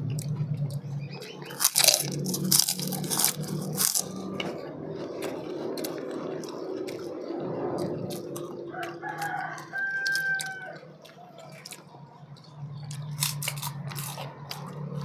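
A rooster crows once, a long pitched call a little past the middle. Around it, the crunching and spoon clicks of people eating from plates, busiest in the first few seconds.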